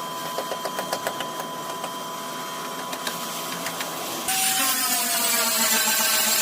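Power-tool noise: a steady machine whine with scattered clicks and taps. About four seconds in, a louder tool sound cuts in suddenly, its pitch sliding slowly down.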